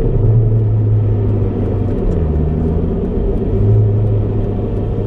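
Honda Civic Type R (EP3) 2.0-litre four-cylinder engine and road noise heard from inside the cabin while driving at speed on track. The engine note dips about two seconds in and climbs back a second or so later.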